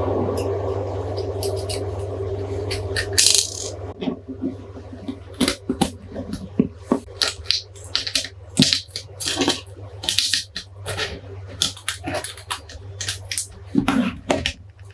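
Precision screwdrivers clicking and clattering against each other and a plastic case as they are handled, in quick irregular clicks over a steady low hum.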